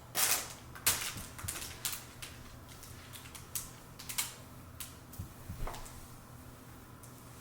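Irregular light clicks and rustles of hands handling things, about a dozen spread unevenly, the sharpest near the start and about a second in.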